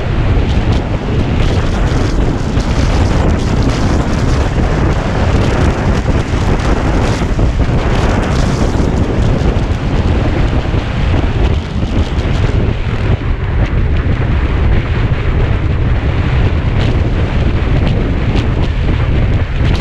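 Heavy wind buffeting on the microphone of a Kawasaki Ninja 250 riding at steady cruising speed, with the motorcycle's engine and road noise underneath. The rumble is loud and even throughout, with no change in speed.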